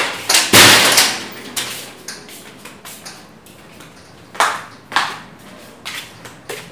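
Handling noise: a loud scraping rustle about half a second in, then a few light knocks and taps as things are moved about.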